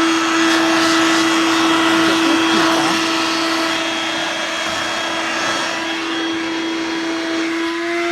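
Dirt Devil Vibe 3-in-1 corded vacuum's motor running, a steady whine over rushing air; the pitch steps up slightly near the end.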